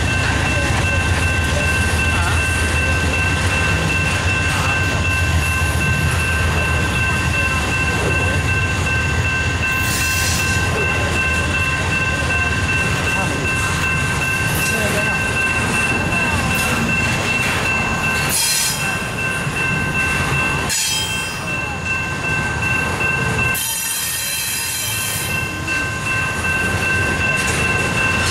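Double-stack intermodal freight cars rolling past: a steady rumble of steel wheels on rail with a steady high-pitched squeal, and several brief bursts of higher screeching in the second half.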